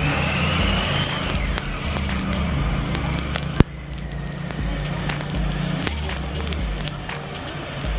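Gas torch flame hissing onto a pile of table salt, with many sharp crackles and pops as the heated salt crystals burst and jump instead of burning. One louder snap comes about three and a half seconds in.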